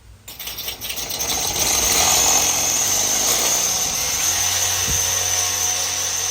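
Power drill boring into the metal lid of a Weber Smoky Mountain smoker, enlarging a started pilot hole with the next bit size up. It spins up just after the start, reaches full speed by about two seconds in, then runs steadily with a high whine as the bit cuts the metal.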